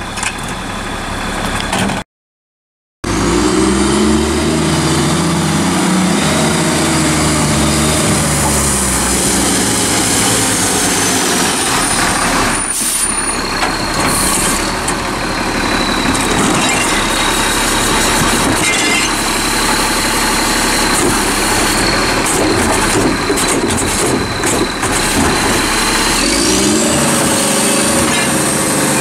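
CCC Labrie MSL side-loading garbage truck's engine running loud and steady, revving up about three seconds in and again near the end, with a short hiss about halfway through. The sound drops out for about a second near the start.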